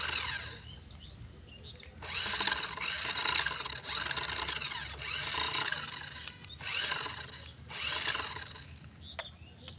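Electric drive motor and plastic gearbox of a radio-controlled toy car whirring as its wheels spin freely in the air, in about five bursts of one to two seconds, each spinning up and winding down as the remote's control is pressed and released.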